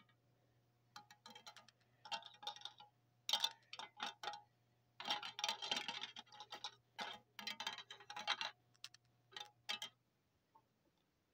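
A plastic toy figure and its tool knocking and scraping against a clear plastic tape dispenser: clusters of light clicks, taps and rattles that stop about ten seconds in.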